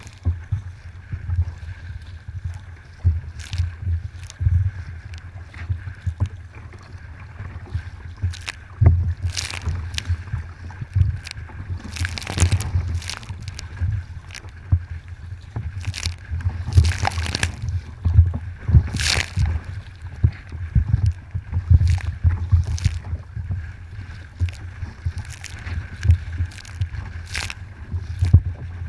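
Kayak on open water: irregular splashes of the paddle and water sloshing against the hull, over frequent low thumps.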